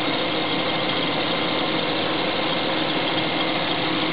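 Nissan Skyline's twin-cam 24-valve 2.5-litre straight-six engine idling steadily.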